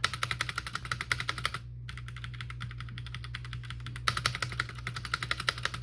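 The space bar of a MageGee MK-Box 60% mechanical keyboard pressed over and over in quick succession, many clicks a second, with a short pause about two seconds in. The clatter is its stabilizer rattling, which the owner calls beyond rattly.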